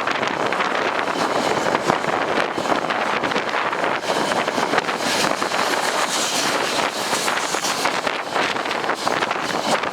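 Gusty wind buffeting the microphone: a loud, rough rushing that rises and falls in quick gusts.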